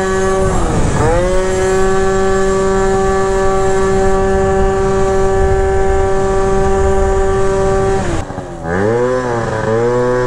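72cc Polini two-stroke scooter engine with a prototype S23 expansion-chamber exhaust, running at high revs with a steady pitch after a short dip about half a second in. About eight seconds in the revs drop sharply and then waver lower as it slows. Wind rushes over the microphone.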